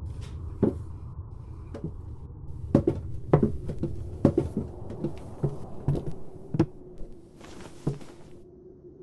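Footsteps on wooden stairs and attic floorboards: about a dozen irregular knocks and thuds, busiest in the middle, with a faint steady hum underneath in the second half.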